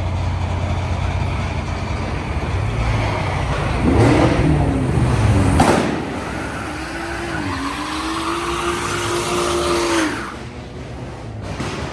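Car engine revving: a loud rev with rising and falling pitch about four to six seconds in, then a rev held at a fairly steady pitch for about three seconds that cuts off suddenly near the end.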